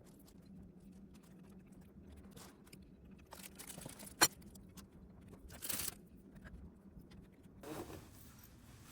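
Faint small clicks, scrapes and crunches of a person eating, with one sharp click about four seconds in and a brief rustle shortly after.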